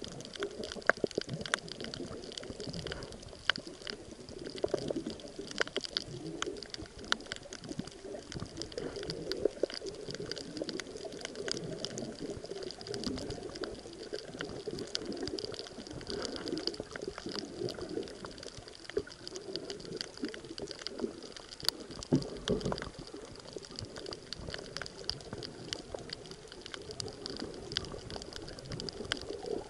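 Underwater ambience heard through a submerged camera: muffled, steady water noise with frequent sharp clicks and crackles scattered throughout.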